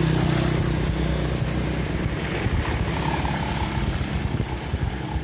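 Wind rumbling on the microphone of a camera carried on a moving bicycle, with street and road noise; a steady low engine hum fades out about a second in.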